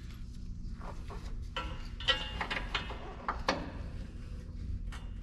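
A handful of light metallic clicks and scrapes as steel bumper bolts are handled and started by hand into the truck's rear bumper mounts, over a low steady hum.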